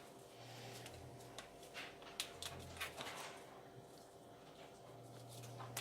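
Faint scattered clicks and light handling noises of kitchen work, over a low steady hum.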